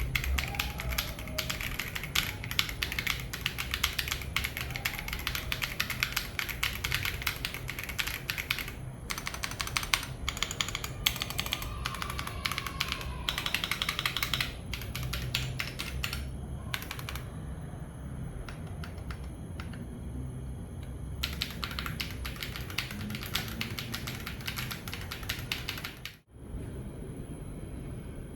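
Typing on a Keychron Q2 Pro full-aluminium gasket-mount mechanical keyboard: fast runs of key clicks with a couple of pauses where the keystrokes thin out.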